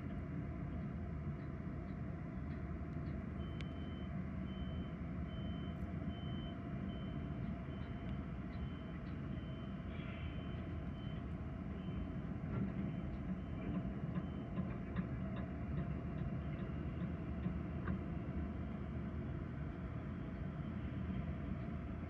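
Construction-site vehicle's reversing alarm beeping at one steady pitch, about once a second, over a steady low engine rumble of heavy machinery. The beeping starts a few seconds in and stops about two-thirds of the way through.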